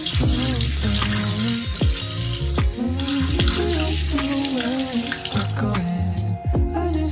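Kitchen faucet running, its stream splashing into the sink over hands being rinsed, then shut off about five and a half seconds in. Background music with a beat plays throughout.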